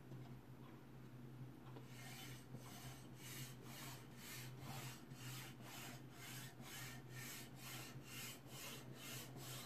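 Hands rubbing over a freshly applied BuildTak Vertex adhesive sheet on a 3D printer's bed, smoothing it down: faint, rhythmic rubbing strokes, about two or three a second, starting about two seconds in. A low steady hum runs underneath.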